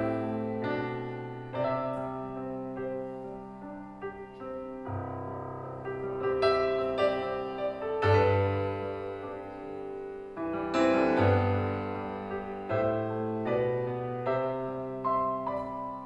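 Roland stage piano playing a slow, gentle instrumental passage, chords and melody notes struck every second or two and left to ring and fade.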